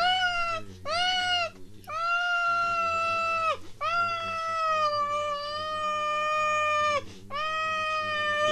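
A high-pitched, squeaky voice wailing in drawn-out screams of distress from the heat: two short cries, then three long held ones, the last sagging a little in pitch near the end.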